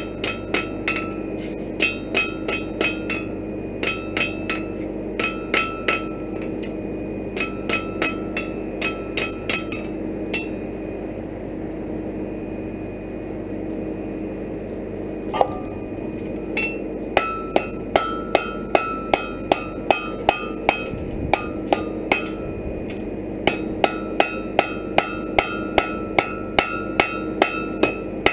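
Hand hammer striking an iron bar on an anvil while forging a fire poker, the anvil ringing with each blow. Short runs of blows, a pause of several seconds, then a steady run of about two blows a second. A steady hum runs underneath.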